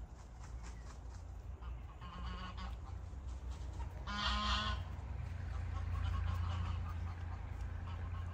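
Poultry calling: two short honk-like calls, a faint one about two seconds in and a louder one about four seconds in, over a steady low rumble.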